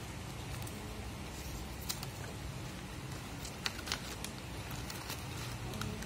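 Steady low background hum with a few faint, sharp clicks: one about two seconds in and two close together near four seconds in.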